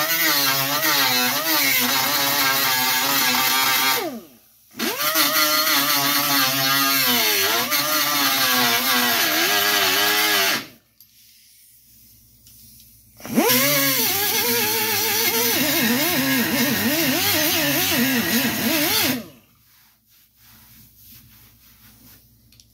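Grinder running in three spells, its pitch wavering up and down as it bears on the metal, cutting stud-welded pull pins off a steel truck box side. It stops for good about two-thirds of the way through.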